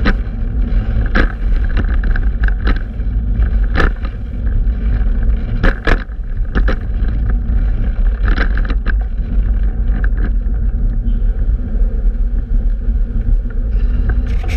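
Heavy wind rumble buffeting the microphone, with road noise from a fixed-gear bicycle ride and irregular sharp knocks and rattles every second or two.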